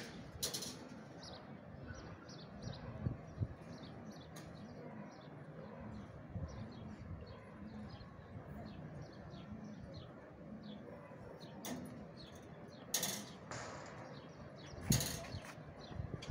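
Domestic pigeons cooing, a low repeated coo roughly twice a second, over the short high chirps of small birds. A few sudden bursts of noise cut in, one near the start and several late on.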